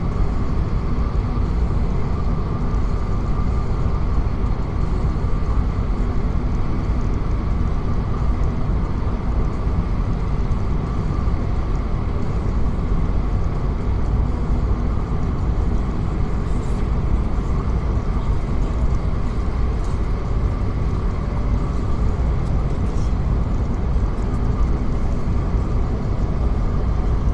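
Steady low rumble of a car being driven at an even speed, with road and engine noise.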